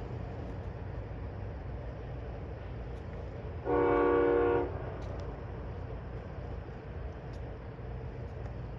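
Nathan K5LA five-chime air horn on a passenger locomotive sounding one short blast of about a second, a chord of several tones together, over the steady low rumble of the passing train.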